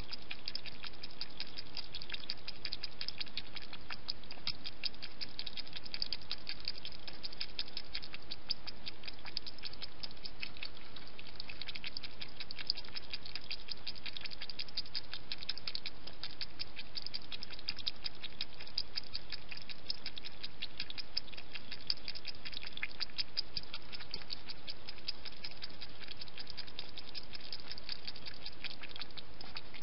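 A hedgehog lapping water from a bowl: a steady stream of quick, fine wet clicks.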